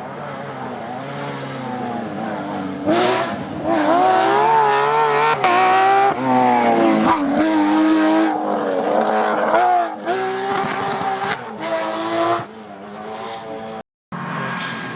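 Rally car engine at full attack, its pitch climbing and falling repeatedly as it accelerates through the gears and lifts off. It grows loud and close about three seconds in and stays loud for several seconds, then fades, with a brief cut in the sound near the end.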